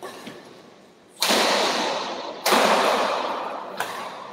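Badminton rackets striking the shuttlecock during a doubles rally, two loud hits about a second and a half apart with fainter ones before and after. Each hit rings on through the hall's echo.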